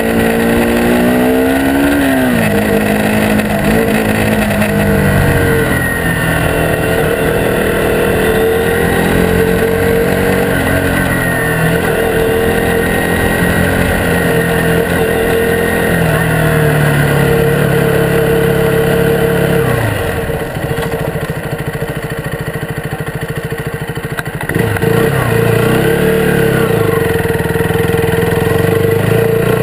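Small motorbike engine running on the move, its pitch climbing and dropping with the throttle. About two-thirds of the way through it eases off and runs quieter for a few seconds, then picks up again.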